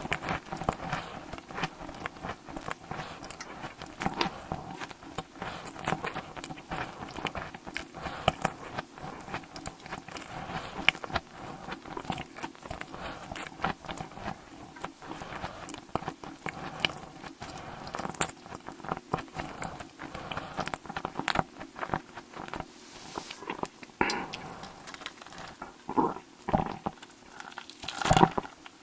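Close-miked ASMR eating: a person biting and chewing food, with many sharp, irregular clicks throughout.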